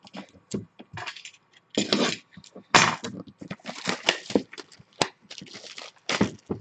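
Gloved hands handling cardboard trading-card boxes and their packaging: a run of irregular rustles, scrapes and light knocks.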